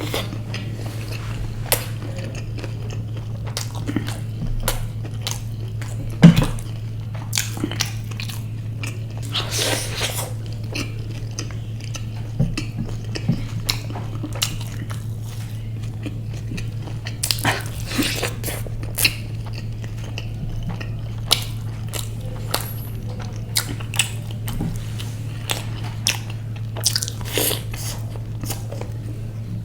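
Close-up biting and chewing of a deep-fried bread pakora: irregular crisp crunches and mouth sounds, with now and then a clink of dishes, over a steady low hum.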